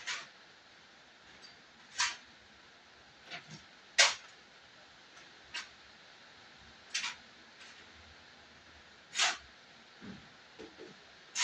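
Shovel scraping into a pile of soil and tipping it into a wheelbarrow: short scraping strokes about every one to two seconds, with a few fainter knocks in between.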